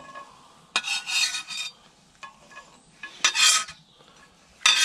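A knife blade scraping across a wooden chopping board three times, about a second in, a little past halfway, and near the end, pushing chopped onion and garlic off into a pan.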